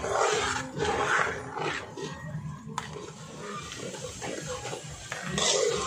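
Spatula stirring and scraping thick cream-and-tomato spaghetti sauce around a metal wok, in rough bursts near the start, about a second in and near the end.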